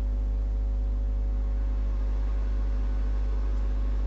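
Steady low electrical mains hum with fainter steady higher tones above it.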